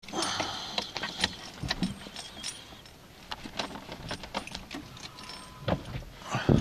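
Scattered sharp clicks and rustles of handling inside the car. Near the end the starter of a 1996 Renault Mégane 1.6 litre 8-valve petrol engine kicks in loudly to crank it, a cold start at −15 °C.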